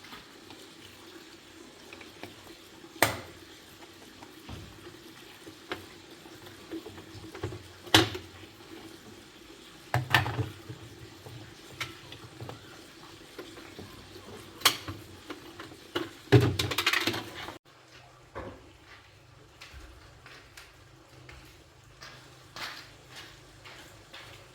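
Scattered clinks and knocks of metal parts and tools being handled during washing machine repair work, over a faint steady hum. The background changes abruptly near the end.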